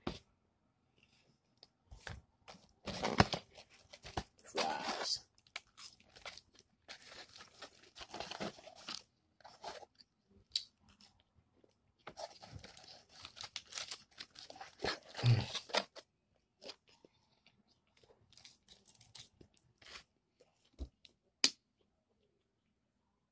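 Paper and a cardboard food box rustling and tearing in several irregular bursts of a second or two, mixed with crunchy chewing of fried chicken.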